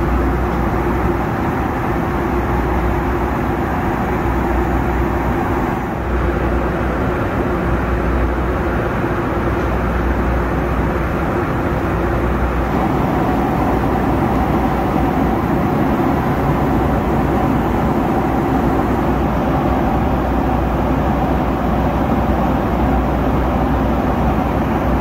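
Steady cabin noise of a Boeing 757 in cruise: a dense rush of airflow and engine hum with a faint steady tone, dipping briefly about six seconds in.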